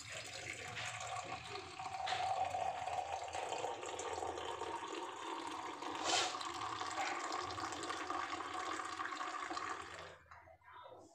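Hot milk tea (chai) poured in a thin stream from a ceramic teapot into a ceramic mug, a steady splashing pour that froths the tea, its tone creeping higher as it goes. The pour stops about ten seconds in.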